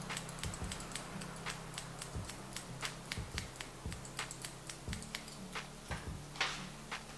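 Hair-cutting scissors snipping through wet hair: an irregular run of crisp metallic clicks, several a second, with one louder snip about six and a half seconds in.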